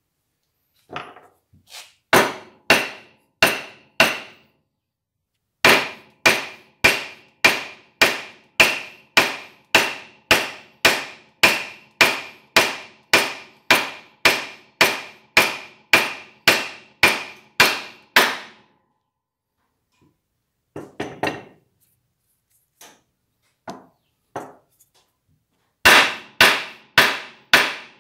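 A metal ferrule being driven onto the end of a wooden file handle with repeated sharp knocks, each with a short metallic ring. There are a few knocks at first, then a long steady run at about one and a half a second, a few lighter knocks, and a quick burst near the end.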